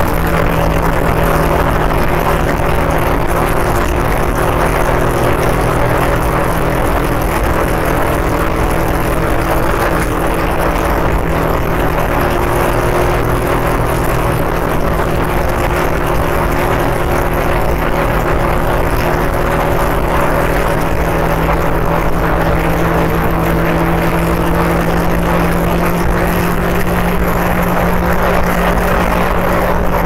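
Motorcycle engine holding a steady cruise under heavy wind and road rush, heard from the rider's position on the moving bike. The engine note stays almost constant, shifting only slightly partway through.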